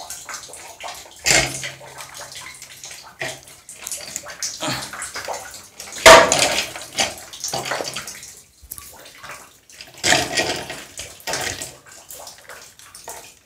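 Irregular handling noises as hands fit wires around the metal heating-element flange of an electric water heater, with the loudest clatter about six seconds in.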